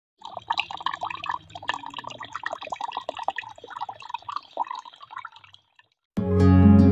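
Water from a small bamboo waterfall trickling and dripping into water, with quick irregular plinks; it stops about five and a half seconds in, and acoustic guitar music starts near the end.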